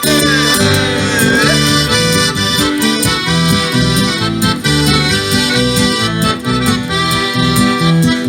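Live instrumental break between sung verses of a folk-style song: sustained chords and melody over a steady rhythm, with no singing.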